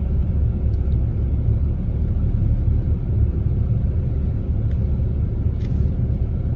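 Steady low rumble inside a car's cabin with the engine running, with a faint click or two.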